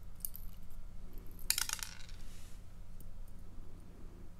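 Small metal lock parts and tweezers clicking and clinking as a pin-tumbler lock cylinder is taken apart: a few faint clicks near the start, then a short cluster of sharp metallic clinks about a second and a half in with a brief ring after.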